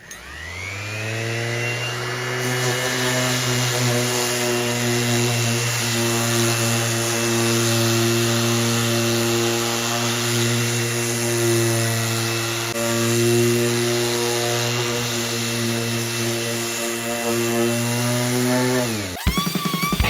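DeWalt palm sander spinning up with a rising whine and then running steadily while sanding a wooden tabletop with 120-grit discs. It is switched off near the end, its pitch falling as it winds down.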